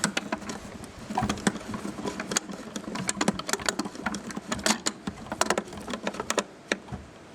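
A screw being driven home into the plastic housing of a Makita DMR110 radio with a screwdriver: a run of quick, irregular clicks and scrapes.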